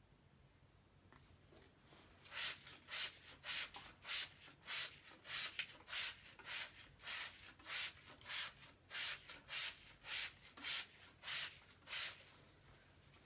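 Hand-pumped trigger spray bottle squirting water onto an upright board in quick repeated sprays, about two a second. The spraying starts about two seconds in and stops near the end.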